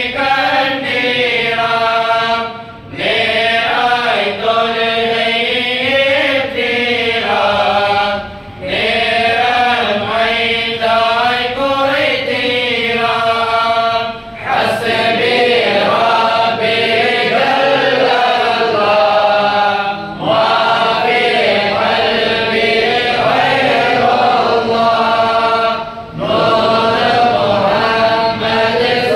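A group of men and boys chanting an Islamic devotional recitation together, in long melodic phrases with a short pause for breath about every six seconds.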